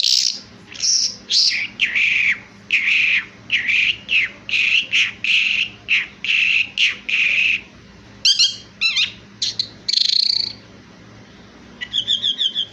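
Skylark singing: a long run of loud, repeated whistled notes, about two a second, breaking into quick trilled phrases, then after a short pause a fast trill near the end.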